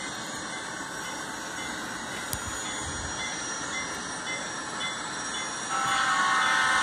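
Onboard sound of an N-scale Union Pacific gas-turbine locomotive model, playing a steady turbine whine and hiss as the train runs. A louder buzzing tone joins about six seconds in.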